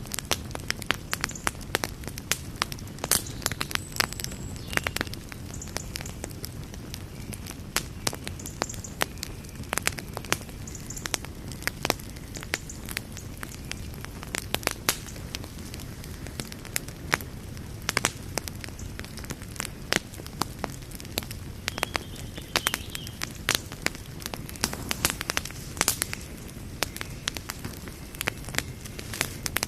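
Wood fire burning with a low steady rumble and frequent sharp, irregular crackles and pops.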